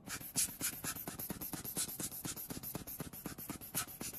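A small hand tool scratching rapidly along the inside edge of an opened iPhone 12 Pro, in quick short strokes of about six a second.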